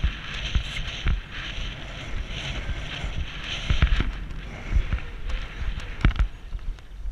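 Horse cantering on a sand arena, its hooves thudding in an uneven rhythm, with wind rushing over a rider-mounted action camera's microphone. The heaviest thuds come about four and six seconds in.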